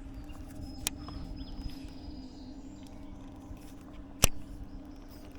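A steady low hum on the water, broken by two sharp clicks, one about a second in and a louder one about four seconds in.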